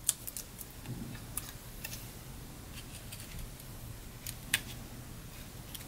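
Scissors snipping small pieces of foam tape, with scattered light clicks and ticks of handling paper pieces, a couple of sharper ones about a second and a half and four and a half seconds in.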